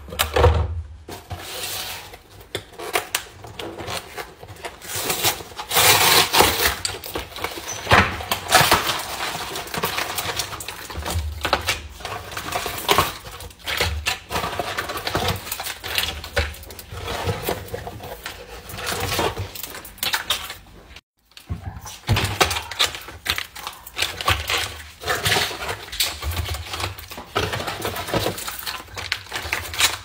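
Capri Sun foil drink pouches crinkling and rustling as they are handled and packed into a clear plastic bin, with irregular knocks and clicks of plastic against plastic. The sound breaks off for an instant about two-thirds of the way through.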